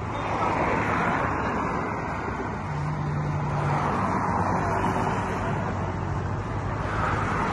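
Road traffic: motor vehicles passing, swelling louder about a second in and again near the end, over a steady engine hum.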